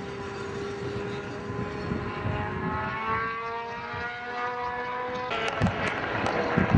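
Race car engines running, one rising steadily in pitch as the car accelerates. About five seconds in the sound turns louder and rougher, with a few low thumps.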